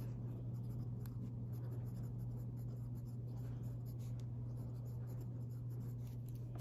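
A pen writing on a paper workbook page, a run of short, faint scratching strokes as words are written out. A steady low hum runs underneath.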